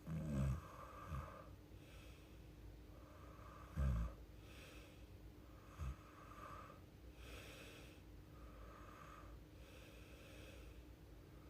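A sleeping woman breathing audibly about every one and a half to two seconds, with short low snores near the start and about four seconds in, and a smaller one about six seconds in.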